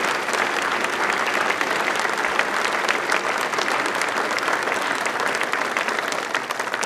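Large audience applauding steadily: a dense wash of many hands clapping.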